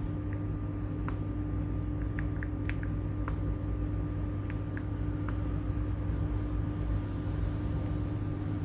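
A steady low hum with about ten faint, scattered clicks, mostly in the first half: single keystrokes on an AULA F75 mechanical keyboard with PBT keycaps.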